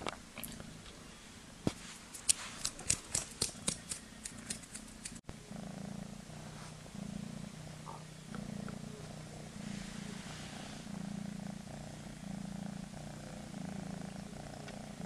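A run of sharp clicks and taps for the first few seconds, then a six-month-old kitten purring close up: a low, steady purr that swells and fades in pulses a little under a second apart.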